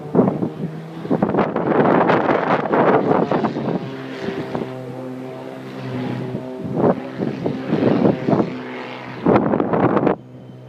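Propeller aircraft engine running with a steady, even drone. Repeated gusts of wind buffet the microphone and cut off sharply near the end.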